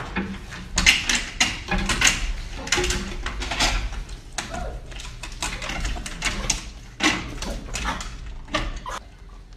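Dogs crowding at a window to be fed: a busy run of short scratching, tapping and clattering noises from paws on the glass and frame, with snuffling.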